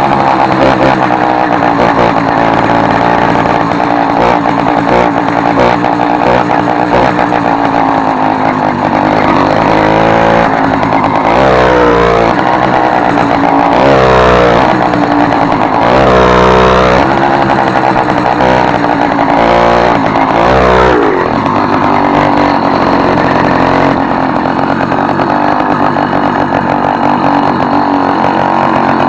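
Motorized bicycle's small engine running loud through an exhaust whose original tip was removed and replaced with an opened soda-can lid, a note likened to a Yamaha RD 135's. The revs climb and fall about four times through the middle, then settle back to steady running.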